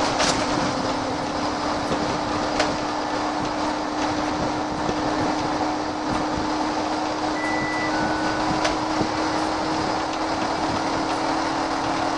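VDL SB120 single-deck bus heard from on board while under way: a steady engine drone whose pitch creeps slightly upward, over constant road noise. A few sharp clicks or rattles come through about once every few seconds.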